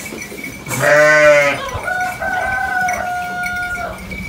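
A sheep bleats once about a second in, a loud, low call. Then, from about two seconds in, a rooster crows with one long, steady, high note lasting about two seconds.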